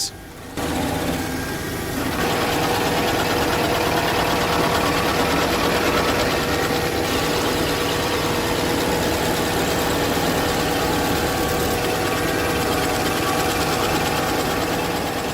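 Kubota SVL75-3 compact track loader's diesel engine running steadily under load while it drives a hydraulic stump-grinder attachment, with a constant mechanical din. It starts about half a second in and gets louder about two seconds in.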